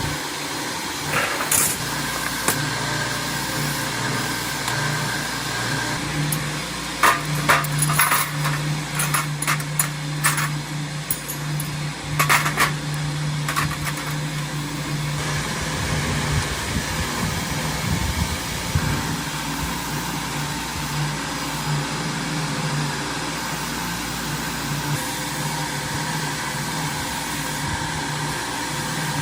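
Small lawn mower engine running steadily with an even hum. A run of sharp clicks and knocks comes in the middle.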